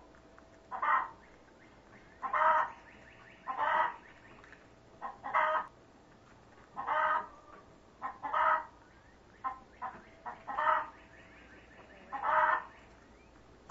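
A chicken calling over and over, with a loud call about every second and a half, some led by a shorter, softer note.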